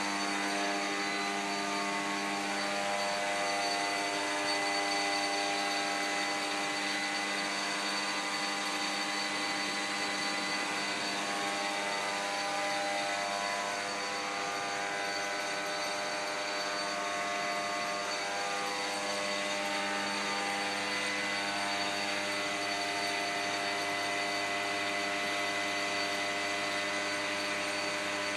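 Small electric blower on a homemade tire-to-syngas rig running steadily, giving an even whining hum.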